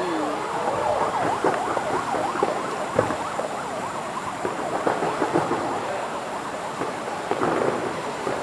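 Fireworks display: many overlapping whistles rising and falling in pitch, with occasional bangs, the sharpest about three seconds in.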